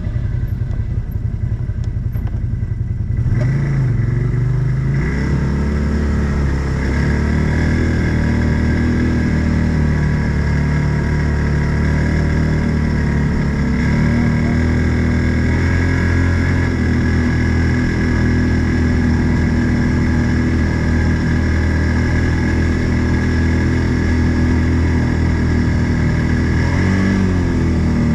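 Odes 800 off-road vehicle engine running. About three seconds in it revs up, then it runs steadily under load while driving, with a brief rise and fall in pitch near the end.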